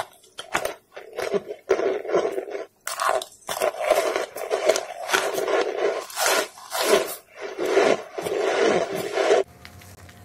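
Close-up crunching and chewing of a hard white chunk held at the mouth, a fast irregular run of loud crunches. It stops suddenly about nine and a half seconds in, and a much quieter background with a faint hum follows.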